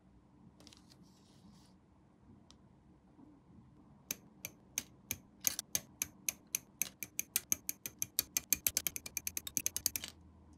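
A run of sharp clicks that starts about four seconds in at two or three a second, speeds up to several a second, and stops abruptly near the end.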